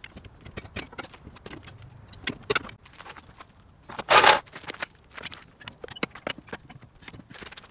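Metal tools and car parts clinking and rattling in a run of short sharp clicks during work on a car's wheel and suspension, with one louder, noisier half-second burst about four seconds in.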